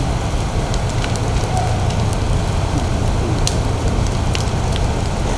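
A burning building: a steady low rumble of fire with many scattered sharp crackles and pops.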